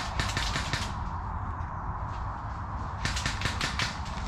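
Two short bursts of rapid airsoft gunfire, fully automatic, each about seven shots in under a second, the second burst about three seconds after the first.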